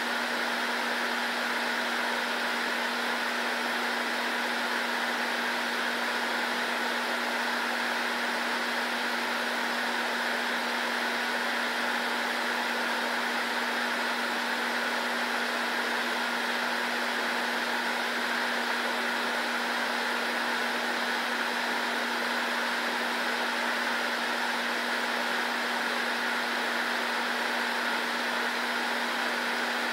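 Steady whir of a fan-driven appliance: an even hiss over a constant low hum, with no change in speed.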